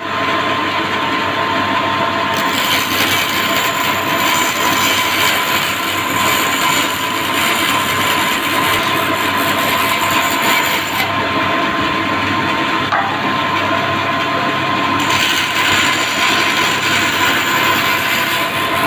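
Bandsaw running and cutting through a softwood board: a steady machine whine under the rasp of the blade in the wood, which grows louder and fades back as the board is fed.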